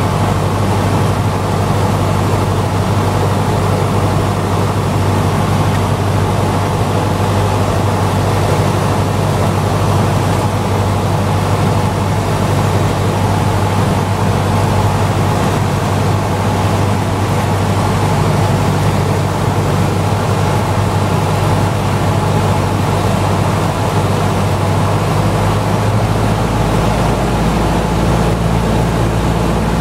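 Cessna single-engine piston engine and propeller droning steadily, heard from inside the cockpit, with rushing air noise, on final approach to land. The engine note shifts about 25 seconds in.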